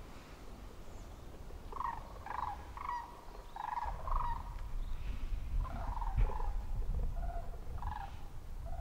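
Wild turkey yelping: about five short calls in a row, then a few more after a short pause, over a low wind rumble on the microphone.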